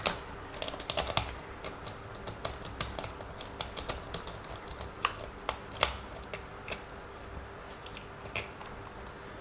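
Irregular light clicks and taps of small plastic and metal parts being handled as the wheel is taken off a WLToys 144001 1/14 RC car, over a faint steady hum.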